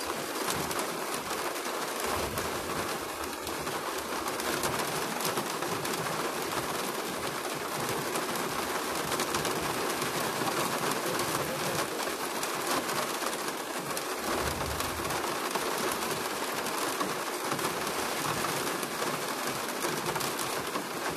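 Steady rain falling, with many close drops ticking through an even hiss.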